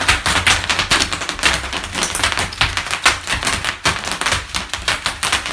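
Bubble wrap popping rapidly under children's stamping bare feet: a dense, continuous crackle of many small pops, with dull thuds of feet underneath.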